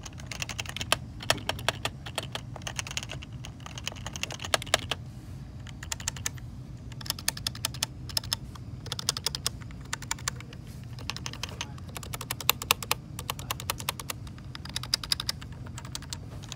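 Typing on a lubed HHKB Professional 2 Topre keyboard, stock 45 g domes on the letter keys and heavier BKE Redux domes on the modifiers and spacebar. The keystrokes come in quick runs with short pauses between them, over a faint steady low hum.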